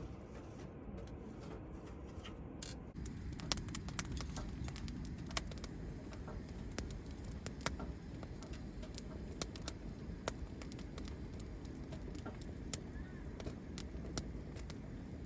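Wood fire crackling in a fire pit, with irregular sharp pops and snaps, several a second, over a low steady rumble. The pops start about three seconds in.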